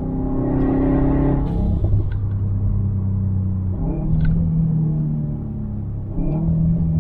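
Tuned Subaru WRX STi 2.5-litre EJ257 boxer engine with a muffler-delete exhaust, revving up under acceleration for about a second and a half. A short hiss comes at the top, then the revs drop. Twice more, around four and six seconds in, the revs jump with brief sharp cracks as it changes gear.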